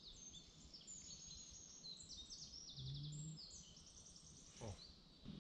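Faint songbird chorus: several small birds giving quick, high chirps and short trills that overlap one another throughout.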